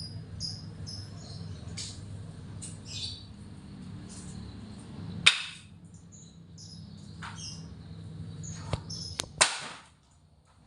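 A small bird chirping in short, high notes again and again over a low steady hum, broken by a few sharp clicks, the loudest about five seconds in and a cluster near the end.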